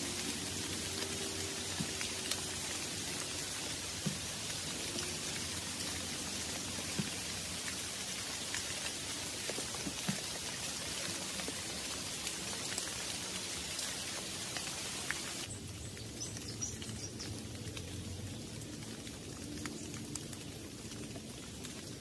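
Steady rain falling on foliage, with scattered individual drops ticking. About two-thirds of the way through, the rain's hiss abruptly becomes quieter.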